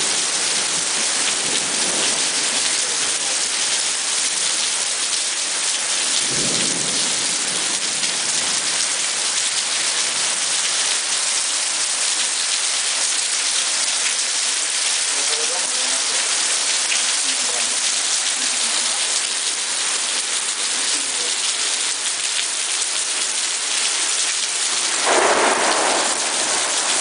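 Heavy rain pouring steadily in a thunderstorm, a dense unbroken hiss. There is a low rumble of thunder about six seconds in, and a louder swell near the end.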